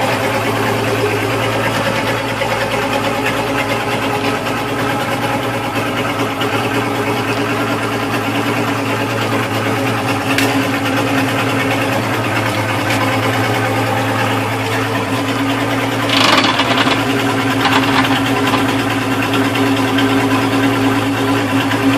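Mercury 135 Optimax outboard, a two-stroke V6 with direct fuel injection, idling steadily. A brief burst of noise comes about sixteen seconds in.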